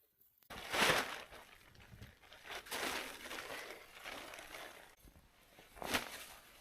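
Crunching and crinkling noises of things being handled and rustled, with a louder crunch about a second in and another just before six seconds.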